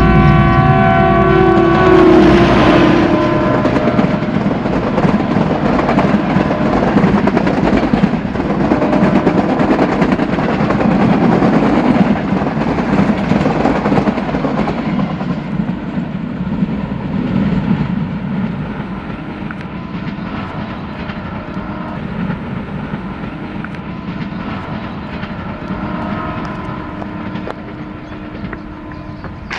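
YDM4 metre-gauge diesel locomotive sounding a multi-tone horn as it comes up, the horn's pitch dropping as it passes about two seconds in. Then the coaches roll past with wheels clattering over the rail joints, and the rumble fades gradually as the train draws away.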